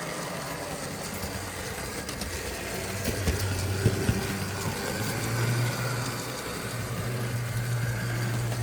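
Model train running round a standard-track layout: a steady low hum from the locomotive's electric motor and running gear, getting louder about five seconds in, with a few sharp clicks from the wheels and track.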